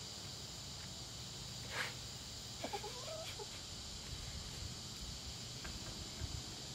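Steady high insect drone of summer woods, with a few short wavering calls about two to three seconds in standing out above it.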